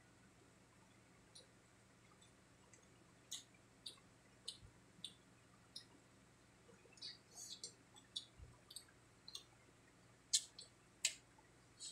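Faint, irregular crisp clicks and crackles of chewing crispy fried pork cheek and mouth smacks while eating by hand, with two louder clicks near the end.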